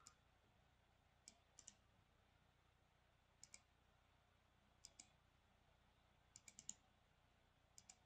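Faint clicks of a computer mouse and keyboard, in pairs and small groups every second or so, the loudest a quick run of four clicks about six and a half seconds in.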